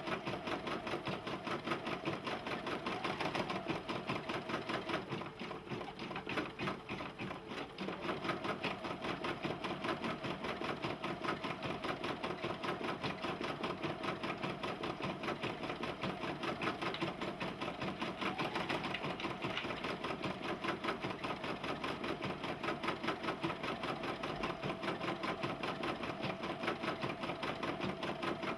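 Brother PE770 embroidery machine stitching, a steady run of rapid, even needle strokes, dipping slightly in loudness about five seconds in.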